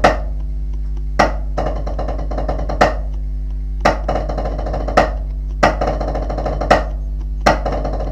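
Snare drum played with sticks in rudimental style: an accented single stroke, then a 13-stroke roll of wrist-and-finger double strokes that ends on the next accent, repeated several times. The accents fall about once a second, with the roll filling the space between them.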